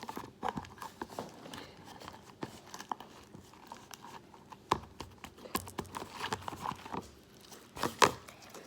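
Hands handling slime-making containers and packaging: scattered clicks and taps with some crinkling, the loudest knocks a little before the five-second mark and near the end.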